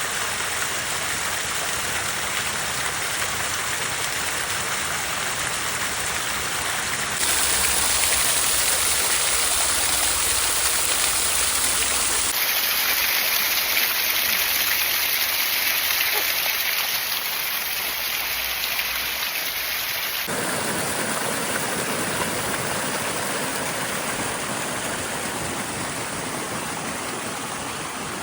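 Steady rushing water noise with no distinct tones. Its character changes abruptly three times, at cuts between shots.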